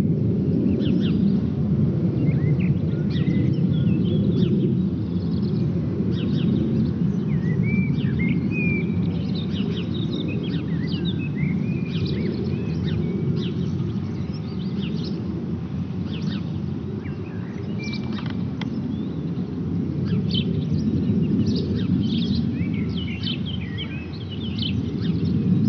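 Distant low rumble of a Eurofighter Typhoon's twin EJ200 jet engines cruising at high altitude, slowly swelling and fading. Birds chirp throughout.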